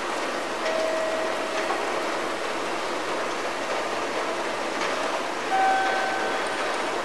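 Steady hiss of background noise with a held electronic tone about a second in, and a higher held tone, the loudest sound, near the end.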